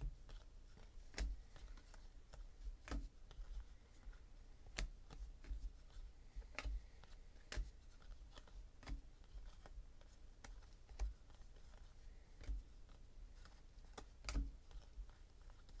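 A stack of Panini Contenders football trading cards being flipped through by hand, one card at a time, each card slid off the stack with a short, sharp click about every second or so.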